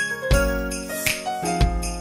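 Upbeat Christmas-style song with jingling bells, a steady beat and a melody.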